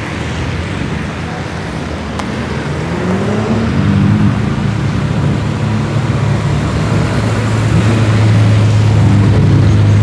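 BMW cars driving past and accelerating away, their engine notes rising and falling. Near the end a steady, loud engine drone builds as a BMW Z3 M Coupé with a straight-six engine goes by.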